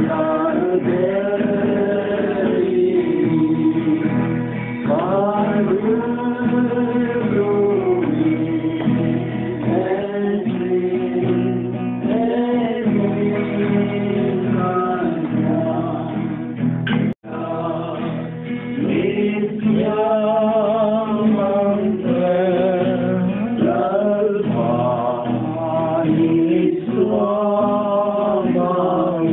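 Male voices singing a song to a strummed acoustic guitar. The sound drops out for a split second about seventeen seconds in.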